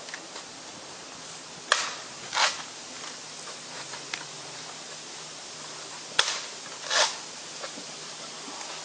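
Two sharp cracks, each followed under a second later by a longer, rougher burst, over a faint steady background hum.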